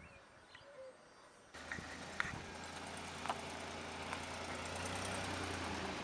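A vehicle engine running steadily with a low hum, starting abruptly about a second and a half in, with a few sharp clicks over it. Before that, quiet outdoor air with a few faint bird chirps.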